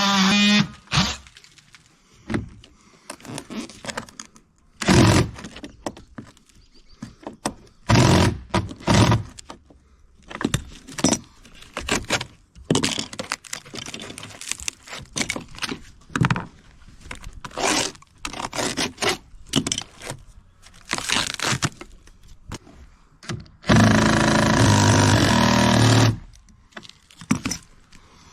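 Scattered metallic clinks, scrapes and knocks of fasteners and hand tools being worked on a chainplate, with a power tool's motor running steadily for about two seconds near the end.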